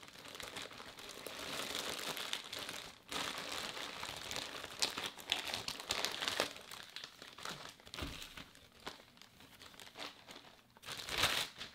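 Clear plastic packaging bags crinkling as hands pull them open and unwrap them, in irregular bursts with a short pause about three seconds in and a louder burst near the end.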